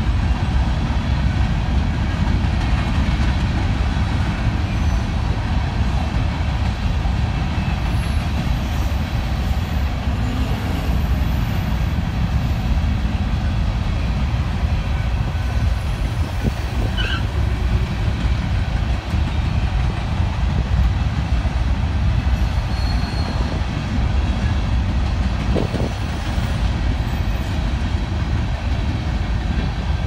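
Freight train of covered grain hopper cars rolling past at a steady pace: a continuous low rumble of wheels on the rails.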